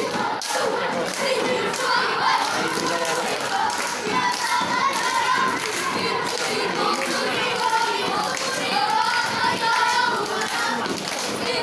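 A group of boys chanting and singing a scout cheer in unison, over repeated thumps from their stamping and clapping as they move.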